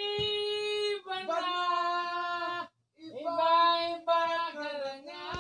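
A person singing long held notes without words, one note after another, with a short break about halfway through. A sharp knock comes near the end.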